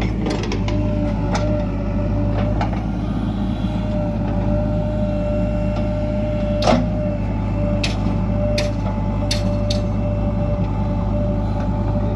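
Heavy diesel engine running steadily with a deep drone and a steady whine over it, broken by several sharp clacks, the loudest about seven seconds in.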